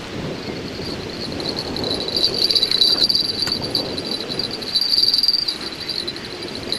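Insects chirring steadily in a high, narrow pitch band, swelling louder about two seconds in and again around five seconds, over a low background rush.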